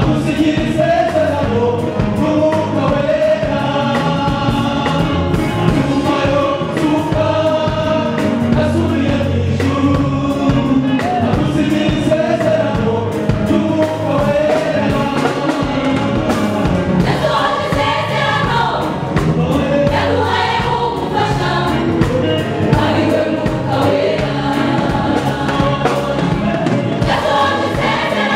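Mixed church choir singing a gospel song, women's and men's voices together, amplified through hand-held microphones.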